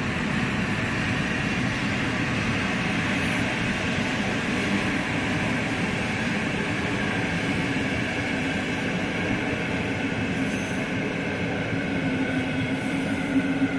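Passenger train hauled by an EP07 electric locomotive rolling past, a steady rumble and rush of coach wheels on the rails.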